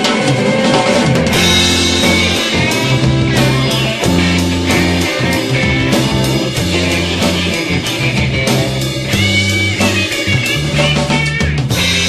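Rock band music: drum kit and guitar over held low bass notes.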